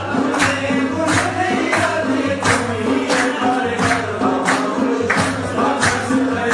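Dance music with singing and a steady beat of sharp percussion strikes, about two a second, over a low sustained tone.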